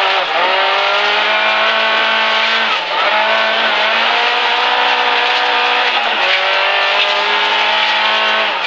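Suzuki Swift rally car's 1.3-litre four-cylinder engine running hard at high revs, heard from inside the cabin. The revs dip briefly about three seconds in and again about six seconds in, then pick up again.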